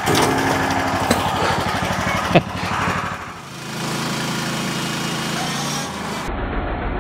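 A small engine running steadily. It changes pitch and character about halfway through and again near the end, where the clip cuts between shots.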